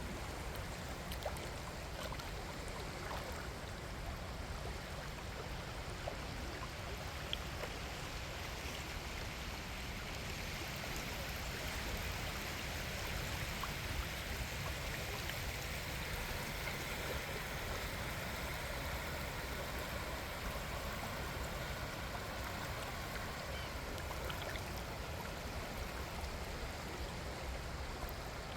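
Small waves washing up on a sandy beach, a steady hiss of water that swells in the middle, with wind rumbling on the microphone.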